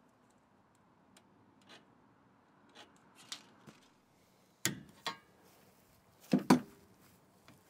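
Scattered sharp metallic clicks and clanks as locking pliers are clamped onto and handled on a length of steel angle iron. The loudest is a quick double clank about six and a half seconds in.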